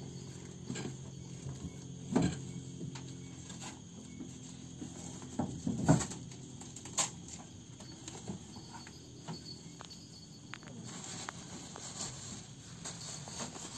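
Insects chirring steadily. A low, steady hum fades out within the first few seconds, and a few sharp knocks come through, the loudest about six seconds in.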